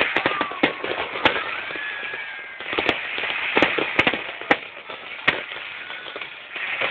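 Aerial fireworks going off in a rapid, unbroken run of bangs and dense crackling, with a thin whistle gliding through in the first couple of seconds.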